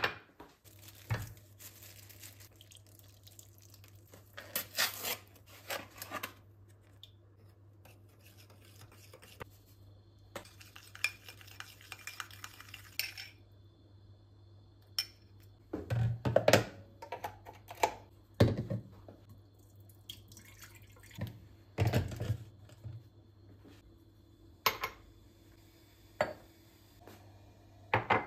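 Kitchen dishes and utensils clinking and knocking at irregular intervals over a low steady hum. A few seconds of scraping, rustling noise come around the middle.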